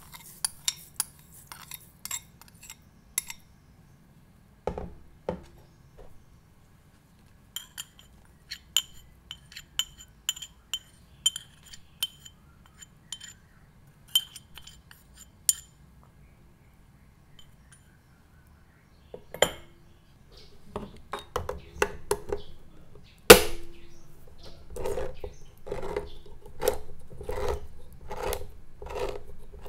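Kitchen prep sounds: a glass bowl tapping as sugar is shaken into a pot of water, then a metal spoon clinking with short ringing ticks against a small ceramic ramekin while scooping cornstarch. In the last third a hand-held can opener bites into a tin of condensed milk with one loud clack and cranks around the lid in a run of even clicks.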